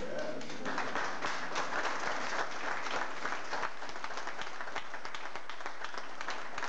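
Audience applauding: many hands clapping together, starting just under a second in and thinning to scattered claps in the second half.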